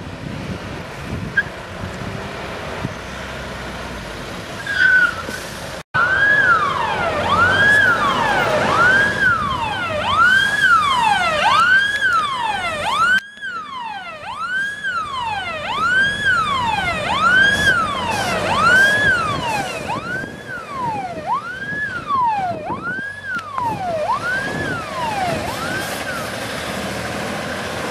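Fire truck siren wailing in a fast, repeating rise and fall of pitch, a little more than once a second, starting about six seconds in. Before it there is only road and engine noise from passing traffic.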